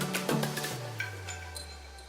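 Background music with a light, quick percussion beat; about halfway through the beat drops away, leaving a low bass note sliding down as the music thins toward a short break.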